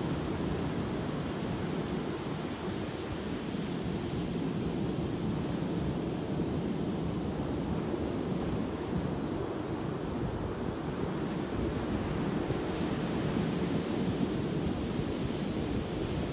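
Ocean surf breaking on a sandy beach: a steady, deep rushing wash of waves, with wind rumbling on the microphone.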